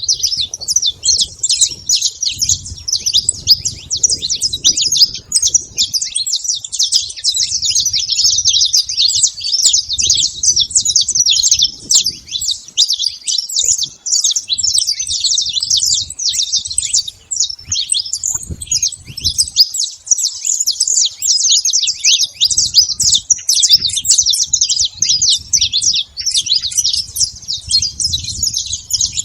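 A flock of saffron finches chirping and calling over one another without a break, many short high notes overlapping. A low rumble comes and goes underneath.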